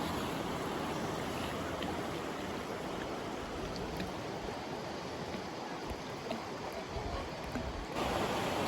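Rushing water of a creek or waterfall, a steady noise. It shifts abruptly to a slightly louder, fuller rush near the end.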